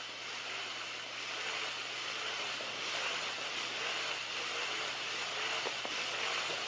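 Shimano 23 Calcutta Conquest MD baitcasting reel being cranked slowly, giving a steady soft whirr from its gears and bearings. The owner judges it a normal sound, with no abnormal noise.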